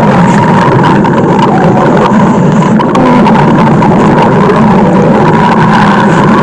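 A loud stomach-growl sound effect: one steady, rough rumble that runs on without a break.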